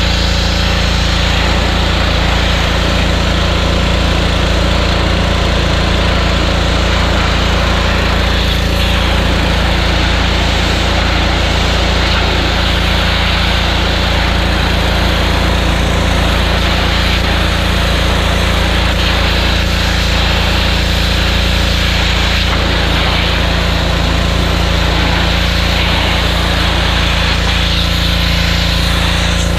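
Small gas engine of a Power Stroke 2200 PSI pressure washer running steadily while washing vinyl siding, with a steady hiss over the engine note.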